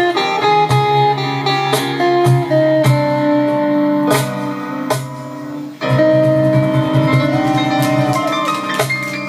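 Live music led by a guitar, picked notes ringing over held tones, with no singing.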